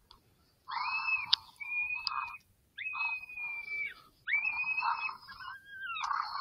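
About four high, wavering whining calls in a row, each about a second long with short gaps, like coyote pup distress cries played to bring coyotes in. A sharp click sounds just over a second in.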